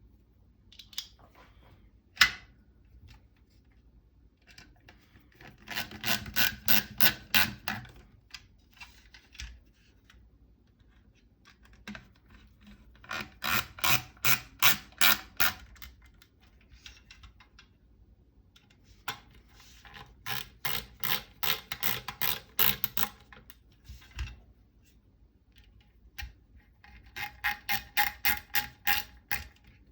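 Ratcheting torque wrench driving the four T25 Torx screws that clamp the SCAR 15P barrel: four separate runs of rapid ratchet clicks, one per screw, with a single sharp click a couple of seconds in.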